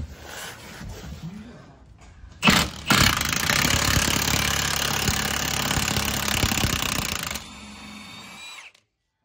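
Cordless impact wrench hammering on the bottom bolt of a Ford Fiesta's rear shock absorber to undo it, starting a couple of seconds in and running for about five seconds. It then runs on more quietly as a steady whine for about a second before stopping.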